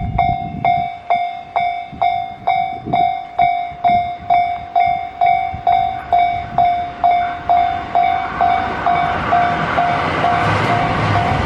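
Japanese railway level-crossing warning bell ringing about twice a second, each strike a bright tone that fades away before the next. From about nine seconds in, the rising noise of an approaching train builds up under the bell and partly covers it.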